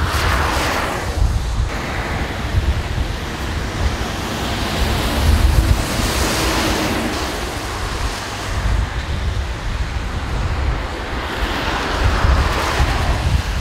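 Wind buffeting the microphone over motorway traffic on a rain-soaked road, with vehicles hissing past on the wet surface, swelling about a second in, around six seconds in and again near the end.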